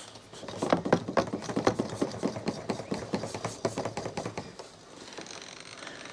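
E85 fuel being put into the car: a run of irregular taps and clicks for about four seconds, then a steadier pouring hiss near the end.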